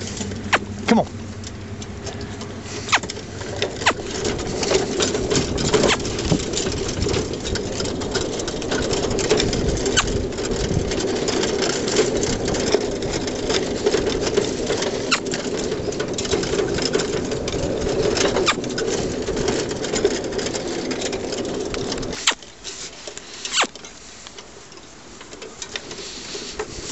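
Pony-drawn cart rattling and clattering continuously as the pony pulls it along, with fast irregular clicks from the frame and fittings. The rattle cuts off abruptly about 22 seconds in, leaving a much quieter stretch.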